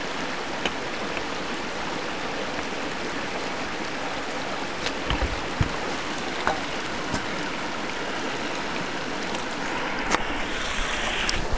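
River water flowing steadily. A few light knocks come about halfway through, and a short burst of brighter splashing comes near the end.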